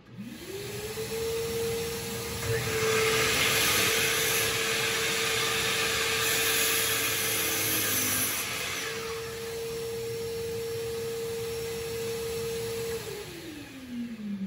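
Miter saw motor spinning up to a steady whine, with its blade cutting through a wooden board for about six seconds. The saw then runs free, and near the end it is switched off and winds down, falling in pitch.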